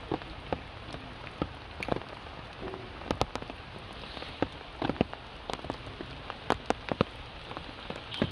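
Raindrops and water drips landing on wet stone steps and leaves. Sharp, irregular taps sound over a steady hiss.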